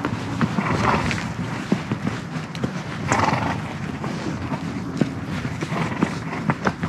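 A horse walking through snow, its hoofbeats crunching irregularly with scattered clicks. Two short, louder rushes of noise come about a second in and again about three seconds in.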